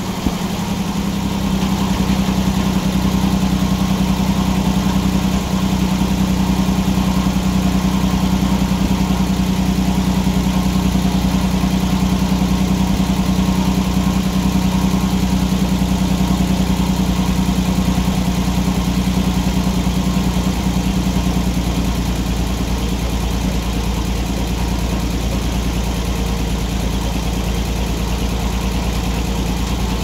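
Engine powering a circular sawmill, running steadily at a constant speed, with no cutting heard.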